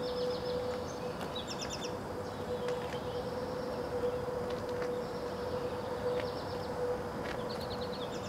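Outdoor dawn ambience: small birds calling in short, rapid trills of five or six high notes, repeated every second or two, over a steady one-pitch hum and a low background rumble.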